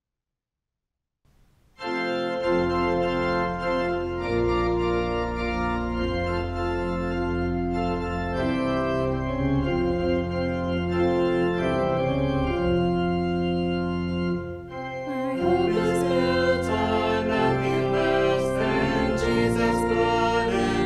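Organ playing sustained chords, starting about a second and a half in after a moment of silence; the music grows fuller and brighter about fifteen seconds in.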